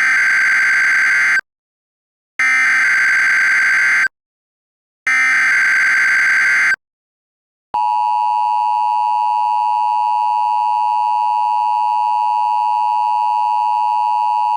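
Emergency Alert System alert: three bursts of SAME header data tones, each about a second and a half with short gaps, then the steady two-tone EAS attention signal starting about eight seconds in. It announces a tornado warning.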